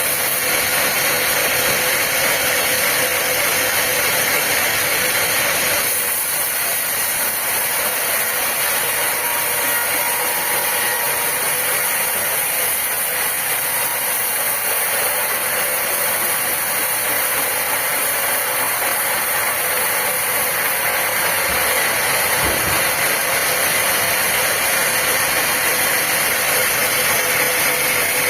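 Steady machine noise with a strong hiss, holding an even loudness throughout, with a slight change in tone about six seconds in.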